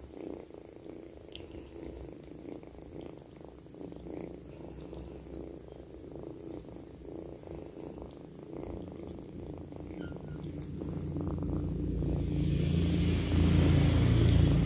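Kitten purring, a fast, fine pulsing hum. A low rumble swells over the last few seconds and becomes the loudest sound.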